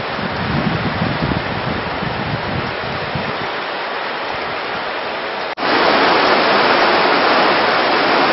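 Shallow river water rushing over a stony bed, a steady rush. A sudden cut about five and a half seconds in makes it louder and brighter.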